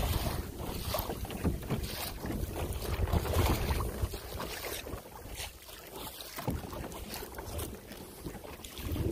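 Wind buffeting the microphone over water splashing around a kayak, with scattered knocks and rustles of handling. The wind eases about halfway through.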